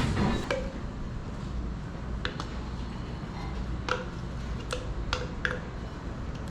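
Kitchen utensils and dishes clinking and tapping as ingredients are added to a bowl: about half a dozen light, sharp taps, some with a short ring, spread over the last few seconds, over a low steady hum.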